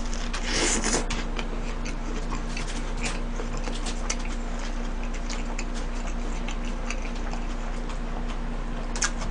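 A person chewing a large mouthful of burger close to the microphone: irregular wet mouth clicks, with a brief louder bite or crunch just under a second in. A low steady hum runs underneath.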